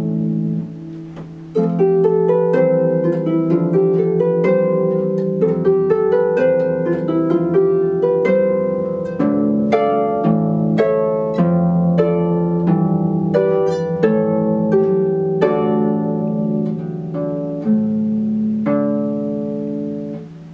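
Solo concert harp playing a Baroque keyboard piece arranged for harp: runs of plucked notes and chords that ring on. About a second in the notes die away briefly before a new loud chord, and near the end they fade again.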